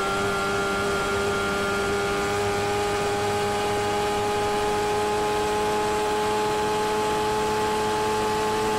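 Honda CBR1000RR sportbike's inline-four engine running hard at high revs in sixth gear, its pitch creeping slowly upward as the bike accelerates at high speed. Steady wind rush comes over the helmet.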